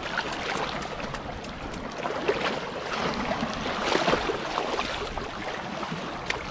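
Footsteps wading through ankle-deep water over rocky reef: water splashing and sloshing around the shoes, with scattered small clicks of soles on rock.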